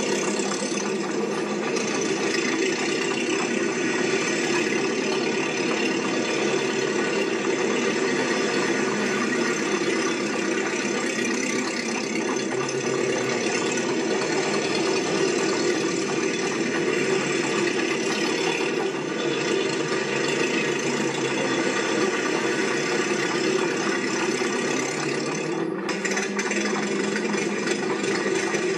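Steady mechanical rattling with an engine-like running noise, unchanging throughout.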